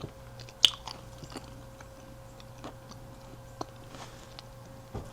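A person chewing fresh fruit: soft, scattered mouth clicks and small crunches, a sharper one just over half a second in, over a faint steady hum.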